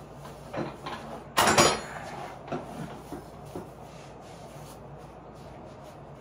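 Linodi weight bench being moved and set in place: a few knocks and clunks of its frame, with one louder clatter about a second and a half in.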